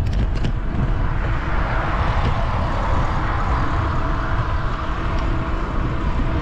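Wind buffeting the microphone of a camera riding along a cycle path, a steady low rumble, with the tyre noise of a passing car swelling and fading in the middle.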